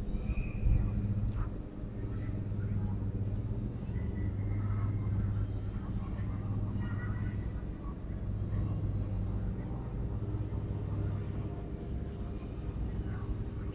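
A steady low motor hum that swells and eases every second or two, with a few faint short high chirps above it.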